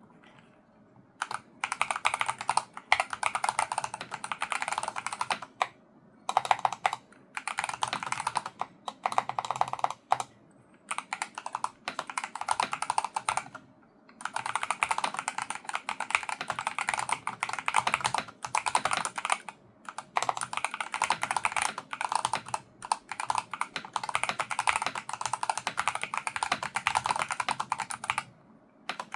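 Typing on a Logitech G Pro X TKL Rapid keyboard with linear Hall-effect magnetic switches: fast runs of keystrokes broken by short pauses, beginning about a second in.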